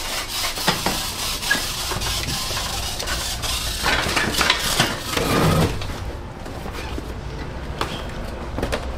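Cardboard packages being handled on a hand truck: scattered knocks, rattles and clatter, busiest about four to six seconds in.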